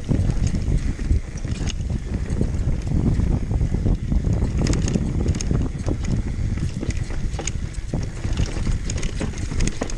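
Wind buffeting the microphone over the low rumble of a downhill mountain bike riding fast over a rough trail, with many sharp rattling clicks from the bike.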